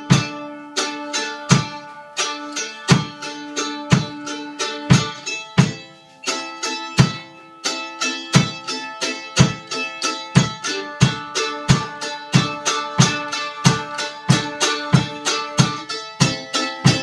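Acoustic plucked string instruments playing an instrumental passage of a somber folk song, notes picked one at a time with each pluck ringing on. The picking grows denser from about halfway, with about two or three plucks a second.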